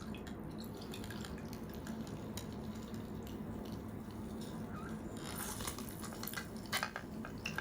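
Handheld citrus juice press squeezing lemon, juice dripping and trickling into a jar, with small clicks and squelches that grow busier in the last couple of seconds.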